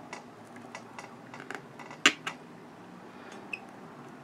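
Light clicks and taps from hands handling and posing a fashion doll on its stand, with one sharper click about two seconds in.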